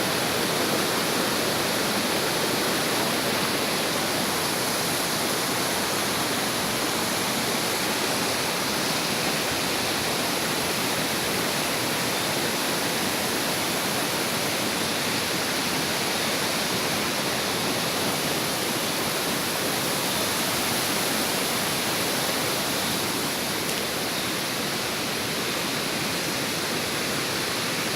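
Steady, even rush of a waterfall and its fast-flowing water, running full and strong.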